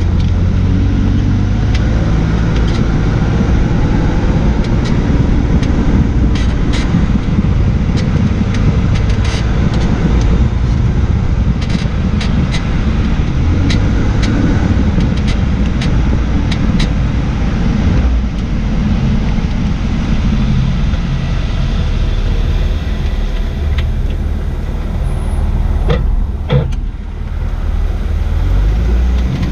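Jaguar XJ6 (X350) on the move, a loud steady rumble of road and wind noise with scattered short creaks and clicks from the rear suspension. The owner suspects the recently replaced rear air strut or a failed bushing.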